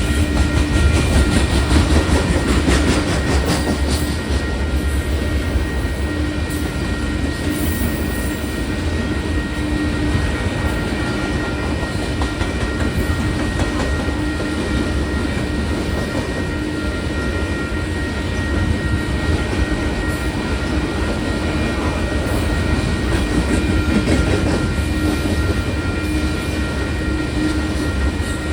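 Freight train of grain hopper cars rolling past over the grade crossing, a steady heavy rumble of wheels on rail with some clickety-clack at the rail joints.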